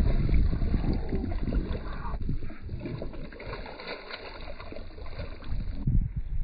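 A hooked largemouth bass thrashing and splashing at the water's surface beside the boat, under a low rumble of wind on the microphone.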